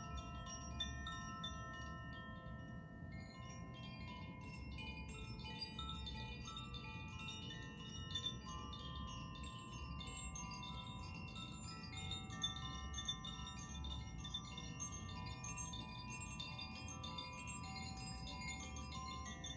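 Tuned hand-held meditation wind chimes being swayed. Their clappers keep striking the tuned rods, so many ringing tones overlap and sustain, and the mix of pitches shifts a few seconds in as different notes come forward.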